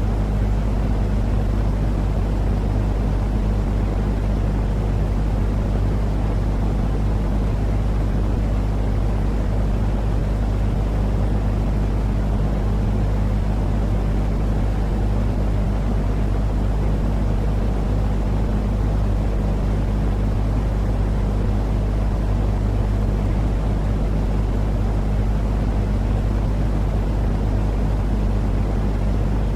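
Steady, low-pitched white-noise rumble from a sleep-aid soundtrack, with soft cat purring mixed in. It stays even throughout, with no pauses or changes.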